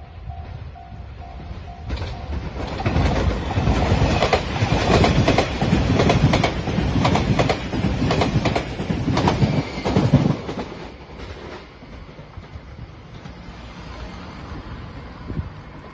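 JR Shikoku 8600 series electric limited-express train passing close by, its wheels clicking rhythmically over the rail joints. It builds from about two seconds in, is loudest for about seven seconds, then fades to a low rumble as it moves away. A level-crossing bell dings steadily at the start, about twice a second, until the train drowns it out.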